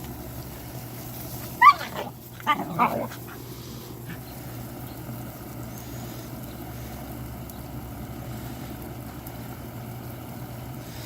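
Puppies barking in play: a sharp yip about two seconds in and a second, longer bark about a second later, over a steady low hum.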